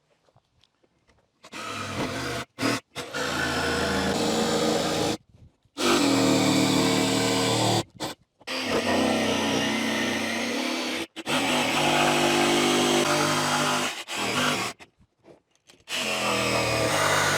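Jigsaw cutting a sink opening through a countertop, running in several stretches of a few seconds each that start and stop abruptly.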